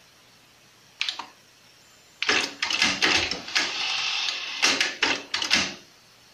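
Sony TC-WR545 cassette deck: a button clicks about a second in, then the tape transport mechanism clunks and clatters as it engages, with a short steady motor whir in the middle, before falling back to faint hiss near the end.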